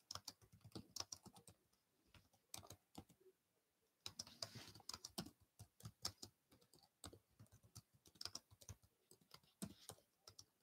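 Faint computer keyboard typing: irregular clusters of soft key clicks.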